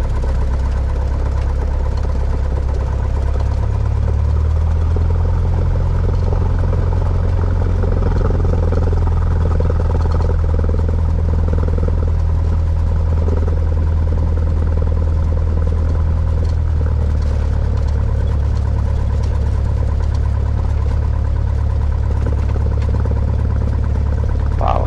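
Single-engine Cessna's piston engine and propeller running at low taxi power, a steady low drone heard inside the cabin.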